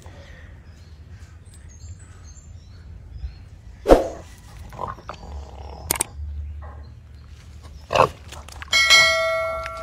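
Wild boar crying out in short bursts a few seconds apart while a Komodo dragon holds it. Near the end a bright bell-like chime rings and fades: a subscribe-notification sound effect.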